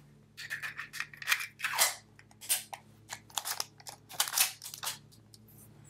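Metal clicks and scrapes from a High Standard .45 ACP prototype pistol being handled: the magazine going into the grip and the hands working the slide. A quick irregular series of about a dozen sharp clicks that stops about five seconds in.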